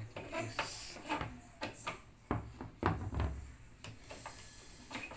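Clicks, knocks and scraping of hard parts being handled on a twin-tub washing machine, with a heavier knock just under three seconds in.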